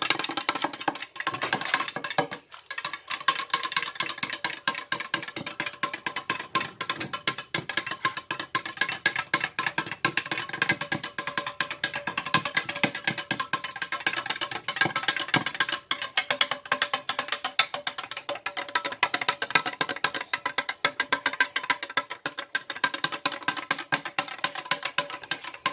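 A large spoon stirring jelly powder into hot water in a measuring jug, quickly, knocking and scraping against the jug in a rapid, continuous clatter as the crystals dissolve.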